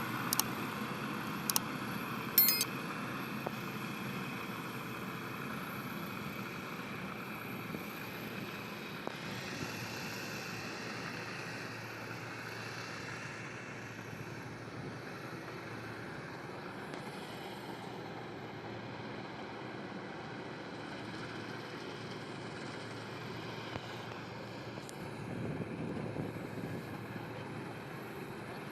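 Farm machinery running steadily, with a few sharp clicks in the first few seconds.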